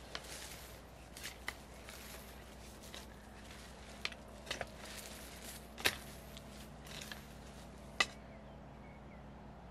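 Long-handled hoe chopping into and dragging loose soil, with irregular sharp knocks of the blade hitting the ground. The loudest knocks come about six and eight seconds in.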